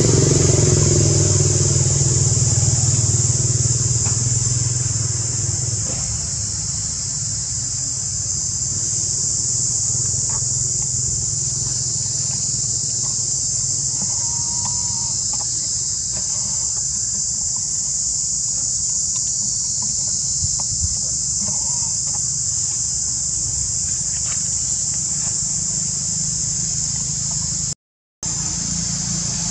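Steady high-pitched drone of a forest insect chorus, over a low motor rumble that is loudest in the first few seconds and then fades back. Two brief faint calls come in around the middle, and the sound cuts out for a moment near the end.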